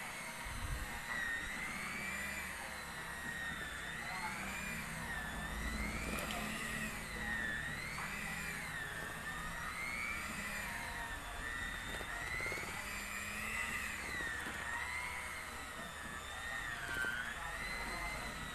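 Handheld electric mixer running with its beaters in batter, a steady motor whine that rises and falls in pitch over and over.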